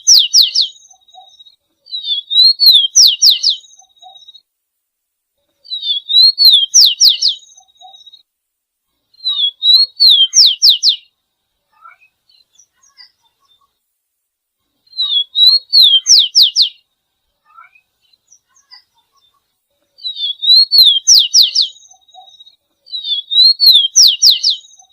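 A songbird repeating the same short high-pitched phrase about seven times: a quick wavering note followed by three or four fast rising whistles, with pauses of one to four seconds between phrases. It is played as a masteran, a bird-song recording meant for other songbirds to learn.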